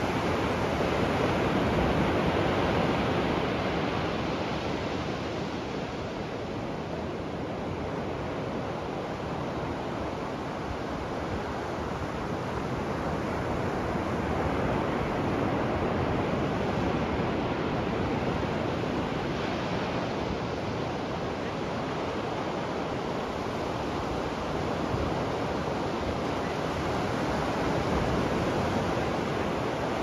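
Ocean waves breaking and washing on a sandy beach, a steady surf that swells and eases slowly every several seconds.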